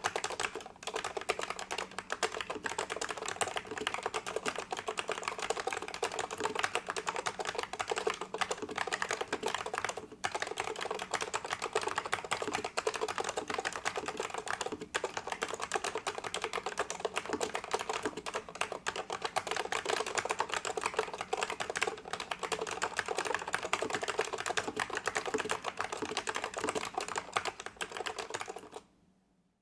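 Continuous fast typing on a vintage Unisys Keycorp K32B keyboard with Alps SKCL Yellow linear switches and thick low-profile keycaps: a dense run of key clacks, with brief pauses about 10 and 15 seconds in, stopping shortly before the end.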